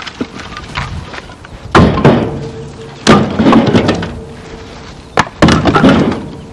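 Split firewood pieces being tossed onto a pile: several hard wood-on-wood knocks a second or two apart, each with a short ring.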